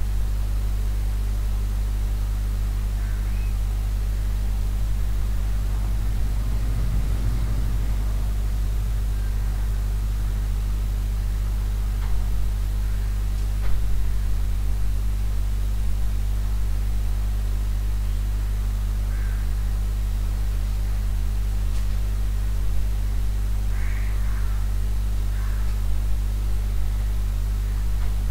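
Steady low electrical hum under a constant hiss, with a few faint brief noises.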